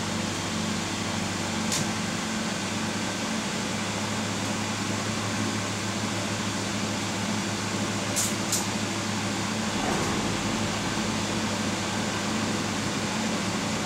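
Airship's Rotax 912 flat-four engines and propellers running steadily in cruise flight: a constant drone with a low hum and rushing air noise. Three brief clicks cut through, one about two seconds in and two close together about eight seconds in.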